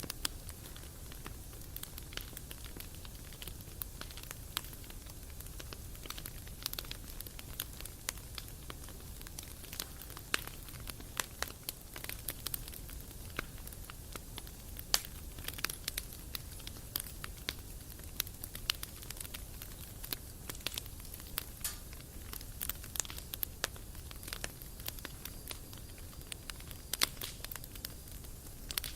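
Wood campfire crackling, with frequent irregular sharp pops over a low steady rumble.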